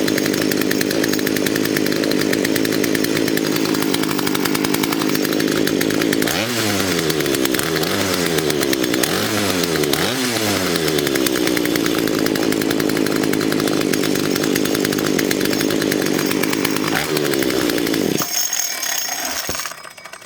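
Poulan P3816 two-stroke chainsaw running steadily, blipped up in speed four times in quick succession about six to ten seconds in, then settling back until the engine cuts off near the end. It is being run to check that the chain oiler is working.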